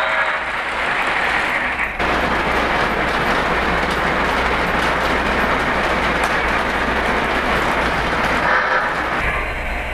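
Lionel O-gauge model trains running on FasTrack: a steady rolling noise of wheels and motors on the plastic track, with an abrupt change in the sound about two seconds in.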